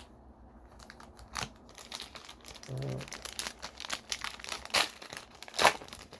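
Foil wrapper of a Panini Prizm trading-card pack crinkling and tearing as it is handled and opened: a run of sharp crackles, the loudest near the end.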